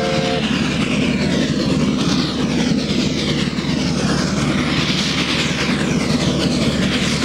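A 2 ft 6 in gauge sugar-mill steam locomotive working hard up a bank, its exhaust beating fast and loud. A multi-tone whistle blast cuts off just after the start.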